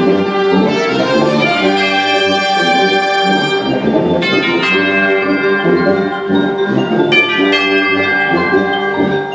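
Live ensemble music from a concert stage: sustained pitched notes and chords, with a few sharp struck accents from percussion.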